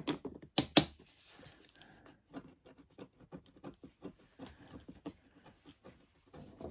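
Handling noise: three sharp clicks in the first second, then faint scattered taps and rustling.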